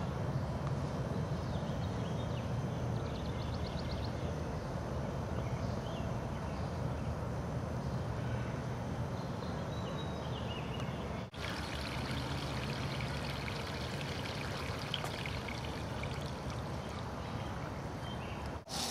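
Water pouring steadily from a pump's discharge hose onto the ground: groundwater pumped out of a basement dug below the water table.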